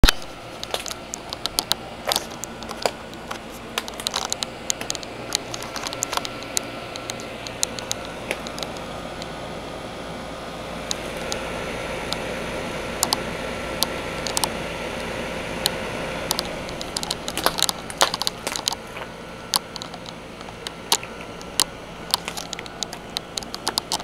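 Trane outdoor air-conditioning condenser units running: a steady fan and compressor hum with a faint held tone, the rush of fan air growing louder for a few seconds in the middle. Frequent sharp clicks and crackles sound throughout.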